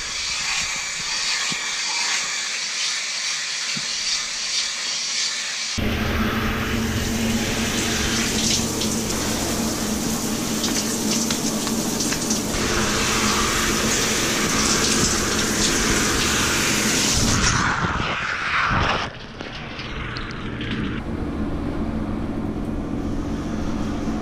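Shaving, a razor rasping over beard stubble, then from about six seconds in a shower spraying water steadily. The spray stops with a short falling whine about three-quarters of the way through, leaving a quieter rustle.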